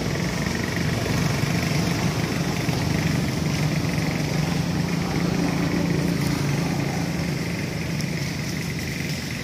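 Steady low hum of an engine running, a little louder through the middle and easing slightly near the end.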